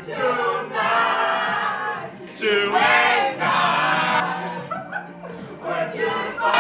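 A group of people singing loudly together in phrases with short breaks, with a quieter stretch just before the end.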